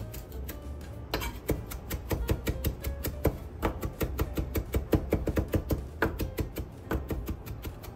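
Chef's knife rapidly chopping flat-leaf parsley on a wooden cutting board: a quick, steady run of blade strikes against the board, starting about a second in.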